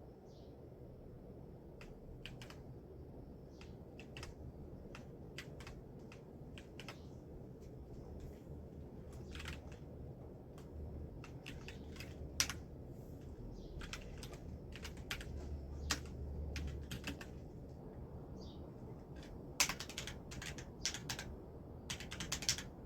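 Typing on an EWEADN V20 Punk mechanical keyboard: irregular key clicks, with quicker runs of keystrokes near the end.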